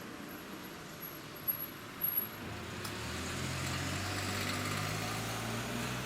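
A motor vehicle passes close by. Its low engine hum grows louder from about two and a half seconds in, over steady road noise, with a couple of short knocks just before.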